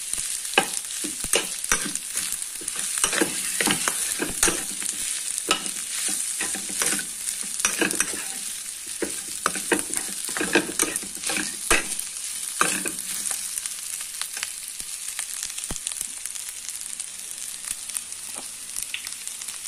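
Fried rice sizzling in a hot frying pan while a metal spatula tosses and scrapes it, with frequent scrapes and taps of the spatula against the pan. The stirring thins out about two-thirds of the way in, leaving mostly the steady sizzle.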